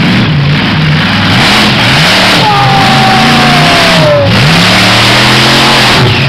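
Monster truck engine revving close by, its pitch climbing and dropping again several times, loud throughout. A high tone slides downward about halfway through.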